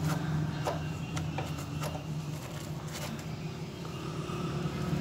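A handful of short, sharp clicks from hand and screwdriver work pulling off an in-line fuel filter, mostly in the first two seconds, over a steady low engine hum.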